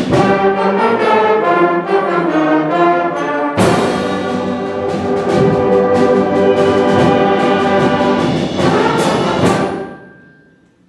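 Middle school concert band playing the closing bars of a piece, with brass prominent in full, sustained chords. A strong new chord enters about three and a half seconds in, two sharp accented hits come near the end, and then the final chord dies away.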